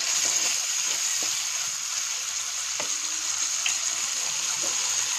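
Small whole fish sizzling steadily as they fry in hot oil in a metal kadai, with a few light knocks of a wooden spatula against the pan.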